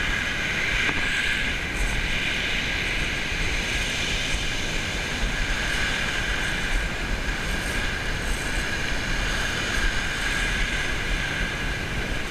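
Waves washing onto a shingle beach, a steady rushing with a constant high whine layered over it.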